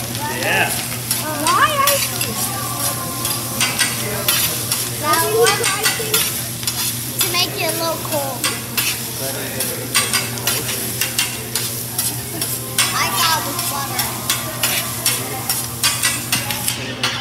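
Fried rice sizzling on a steel teppanyaki griddle while a metal spatula and scraper chop and turn it, the blades clicking and scraping against the griddle many times.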